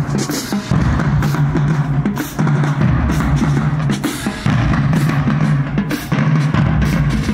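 Marching band drumline playing a cadence: snare drums and bass drums beating a steady marching rhythm.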